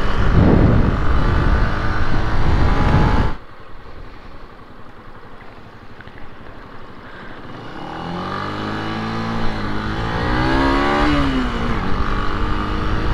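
Loud wind and engine noise from a motorcycle at speed for about the first three seconds, cutting off suddenly. Then the Benelli BN 125's small single-cylinder engine runs more quietly and pulls away, its revs rising and falling from about eight to eleven seconds in.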